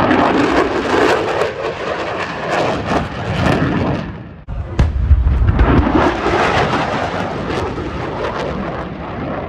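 F-35 fighter jet's afterburning turbofan flying past, loud jet noise with a rough crackle. The sound drops out briefly about four and a half seconds in and comes back with a deeper rumble as the jet passes again.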